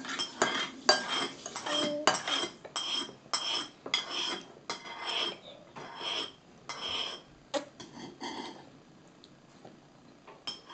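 A spoon clinking against tableware over and over, about two strikes a second, each with a short ring; the strikes thin out and grow fainter after about eight seconds.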